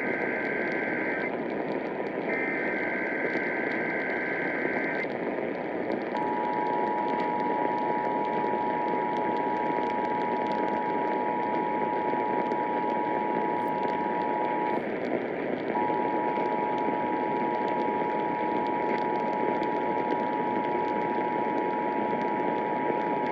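Emergency Alert System test received over the radio: the last two bursts of the digital header data, then the steady two-tone attention signal. The attention signal breaks off for about a second partway through. Radio hiss runs underneath.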